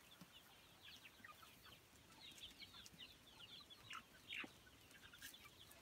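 A flock of young chickens, about two and a half months old, peeping and chirping faintly in many short, high, falling calls that overlap. One louder call comes a little after four seconds in.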